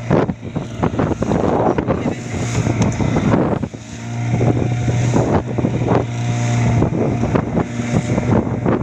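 Fishing boat's engine running steadily under way, with repeated sharp knocks and wind buffeting the microphone.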